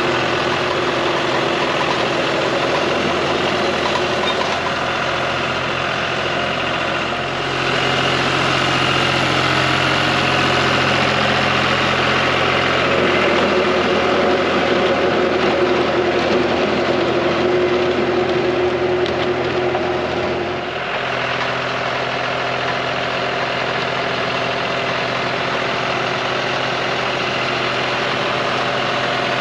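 John Deere 5055D tractor's diesel engine running steadily while driving a rotary tiller through soil. The engine gets louder about a quarter of the way in, its note shifts a couple of times, and it eases back about two-thirds of the way through.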